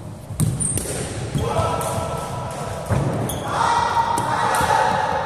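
A cricket ball bouncing on a wooden sports-hall floor and knocking off the bat: a series of sharp knocks that echo in the large hall. Players shout over it as they run.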